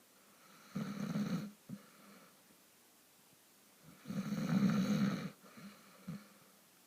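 Heavy snoring: two long snores, the second longer and louder, each followed by a brief snort.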